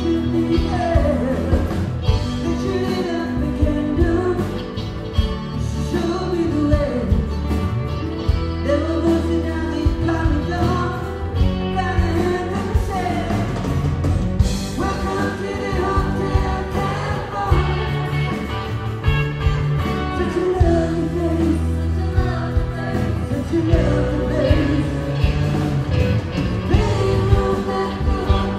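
A band playing a song: a lead singer over guitar, bass and drums, with the beat steady throughout.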